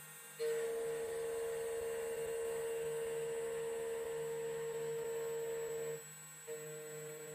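CNC key-cutting machine running, milling a key blank out of copper: a steady hum with a grinding hiss over it. It stops about six seconds in and starts again, more quietly, half a second later.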